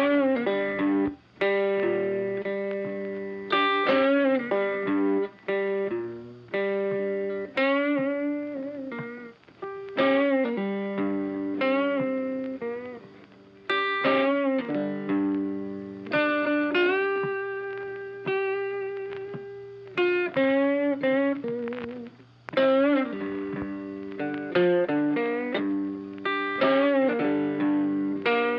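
Background music: a plucked guitar playing a run of struck notes and chords that ring and fade, with some notes bent in pitch.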